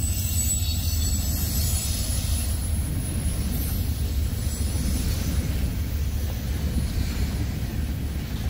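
Freight train rolling past close by: the trailing diesel locomotives and then tank cars, a steady low rumble of wheels on rail. A faint high squeal fades out in the first second or so.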